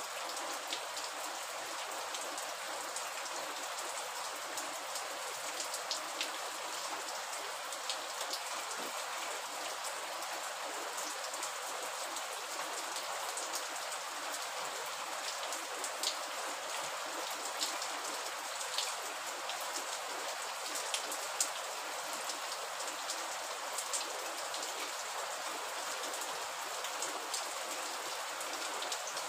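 Steady rain falling: an even hiss with scattered sharp ticks of drops landing.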